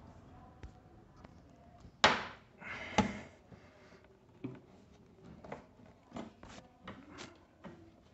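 Screwdriver and hands knocking and clicking against the plastic dash panel and metal windshield bracket of an electric scooter while a bracket screw is being undone: two sharp knocks about two and three seconds in, then a run of lighter clicks.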